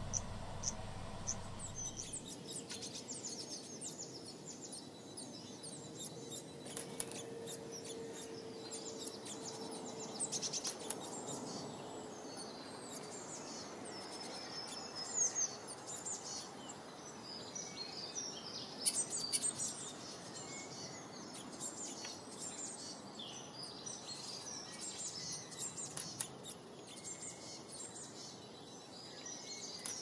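A chorus of small songbirds chirping and trilling, with many quick high chirps overlapping throughout. It opens with about two seconds of regular cricket-like chirping that cuts off abruptly when the birdsong begins.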